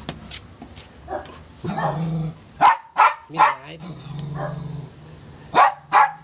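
Puppies barking: three short sharp barks in quick succession a few seconds in, then two more near the end.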